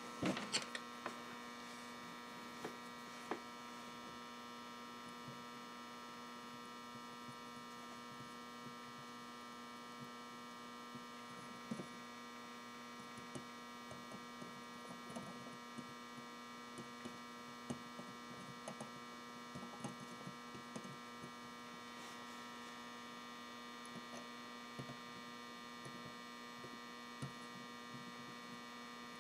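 Steady electrical hum from an off-grid power inverter, several faint steady tones layered together, with scattered small clicks and taps from wire being handled and soldered.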